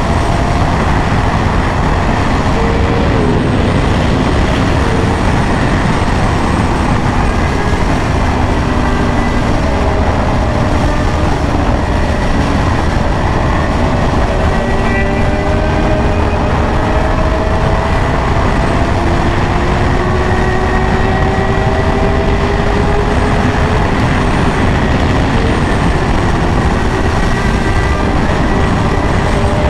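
Wind noise on the rider's microphone while riding a 2024 Yamaha R1 at a steady pace, the bike's inline-four engine running underneath with its pitch drifting slowly up and down.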